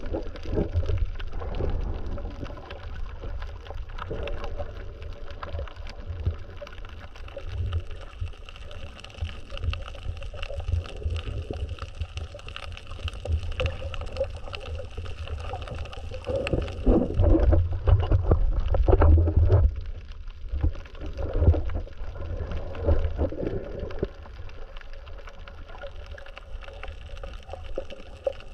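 Muffled underwater water noise picked up by a submerged camera: a steady low rumble with gurgling, heavier for a few seconds about two-thirds of the way through.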